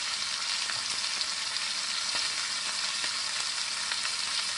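Beef chuck roast and sweet pepper pieces searing in a hot ceramic-coated braising pan, sizzling steadily with a few faint pops of spattering fat.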